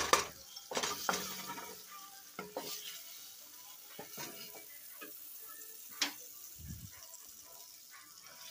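Butter melting and sizzling faintly in a metal pot on the stove, stirred with a wooden spatula that scrapes and knocks against the pot every second or two. The loudest knock comes right at the start.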